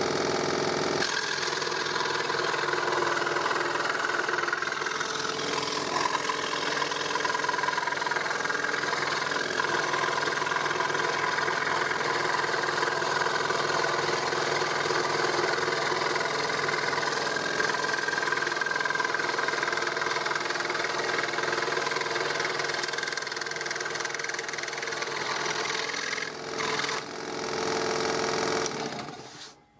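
Hegner fret saw (scroll saw) running at a fairly high speed, its reciprocating blade cutting a curved line through a thin wooden board. The machine sound is steady, dips briefly near the end, then stops.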